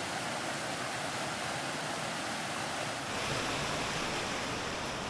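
Steady rush of a fast-flowing mountain river, an even wash of water noise whose tone shifts slightly about three seconds in.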